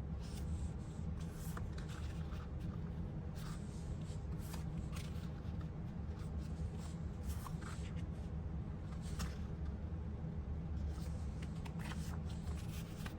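Paper cards and scraps being set down and slid around on a tabletop: soft rustles and light taps every second or so, over a steady low hum.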